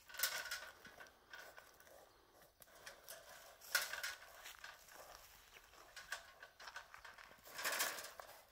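Faint, uneven footsteps scuffing and crunching through dry leaf litter and soil, with louder clusters near the start, about halfway and near the end.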